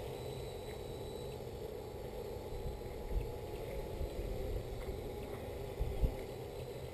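Quadcopter's electric motors and propellers humming steadily as it hovers at a distance, with a couple of brief low bumps about three and six seconds in.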